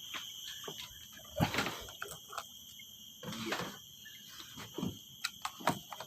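Steady high-pitched insect drone, crickets shrilling, with scattered short knocks and rustles.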